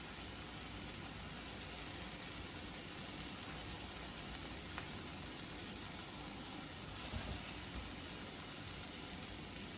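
A pan of filling, just taken off the heat, still sizzling with a faint steady hiss. A soft click and a low knock come partway through.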